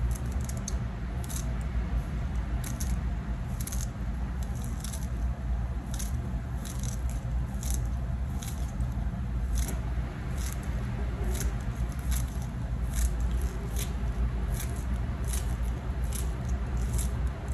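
Green onion leaves being cut up: irregular, crisp cuts, one or two a second, over a steady low hum.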